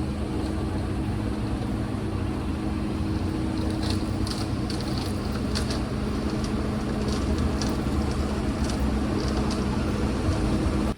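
A motor running steadily with a low hum, and a few faint light clicks in the middle.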